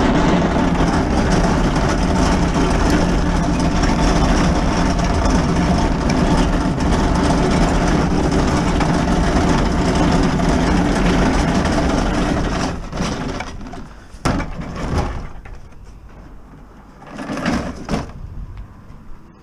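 A treadmill rolled on its transport wheels over rough asphalt, a loud steady rumble and rattle that stops about twelve seconds in. A few separate knocks follow as the treadmill's frame is tipped up and handled.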